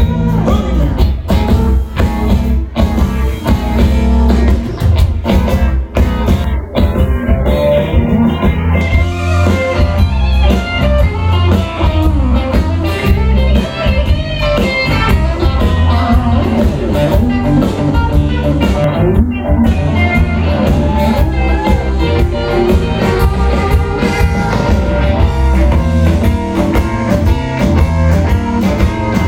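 Live country-rock band playing a loud guitar-led instrumental passage over a drum kit, with no vocals.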